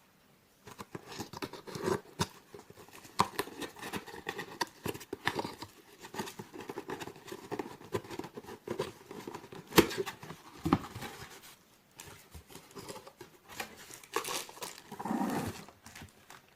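Packaging being handled and unwrapped by hand: crinkling and rustling with scattered clicks and knocks. It starts about a second in and stops shortly before the end.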